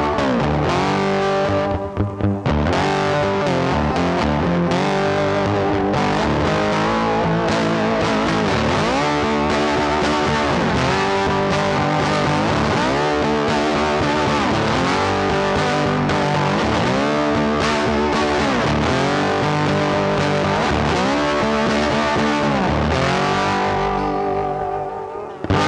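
Background music led by a distorted electric guitar, its notes bending up and down. It drops out briefly about two seconds in and fades just before the end.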